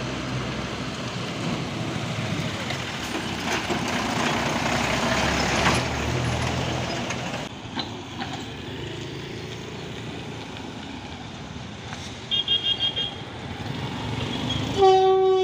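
A truck engine runs as the truck comes through a railway underpass, followed by quieter motorbike and road traffic. A quick string of short, high beeps sounds about twelve seconds in. Near the end, the loud, steady horn of an electric locomotive crossing overhead starts up.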